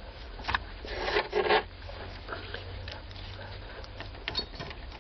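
Short scratchy clicks and light metallic scraping of a thin wire being worked into the release hole in the side of an ignition lock cylinder, busiest about a second in, then a few scattered clicks, over a low steady hum.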